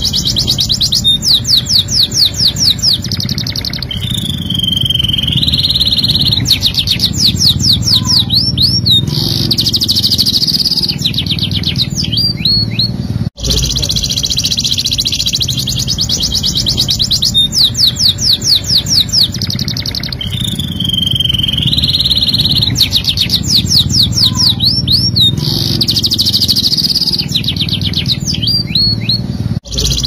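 Domestic canary singing a rolling song of fast trills, rising and falling whistles and short chirps, over a steady low background hum. The same song passage repeats after a brief dropout about halfway through, as a looped training recording.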